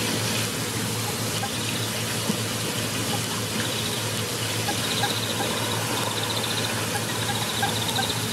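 Outdoor ambience at a waterhole: a steady hiss with a low hum, and a bird's short high trills repeating every second or two.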